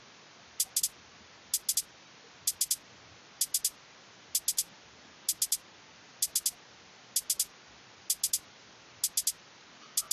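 Programmed hi-hat pattern looping from an FL Studio channel rack, with swing applied: short crisp hat ticks in quick groups of two or three, repeating about once a second with no kick or snare. A steady hiss runs underneath.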